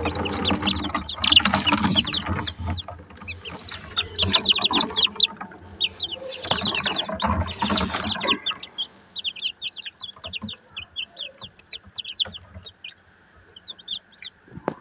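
Newly hatched chicken chicks peeping, many short high cheeps overlapping, with low bumping noise under them. After about eight seconds the bumping stops and the peeping thins to scattered cheeps, fading lower near the end.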